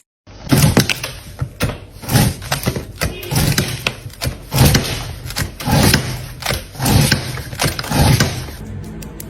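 A run of about a dozen heavy knocks or thumps at an uneven pace of roughly one a second, starting just after a brief silence and stopping shortly before the end.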